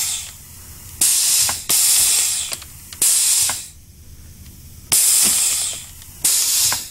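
Pneumatic ram firing over and over at low pressure: five sudden blasts of compressed air hissing out, each cutting in sharply and fading within about half a second, with a few sharp clicks between them.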